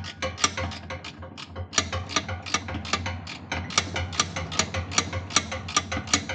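Hand ratchet wrench clicking steadily, about three sharp metallic clicks a second, over a low steady hum.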